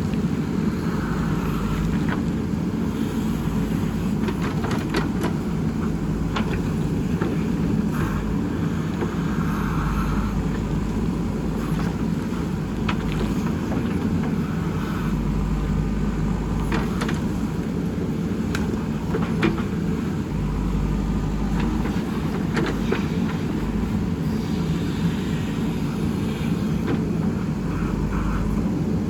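Backhoe loader's diesel engine running steadily while digging, with scattered knocks and clanks throughout.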